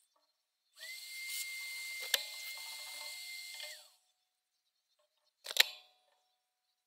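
Handheld rotary tool running for about three seconds with a steady high whine, then winding down as it is switched off. A single sharp knock with a short ring comes near the end.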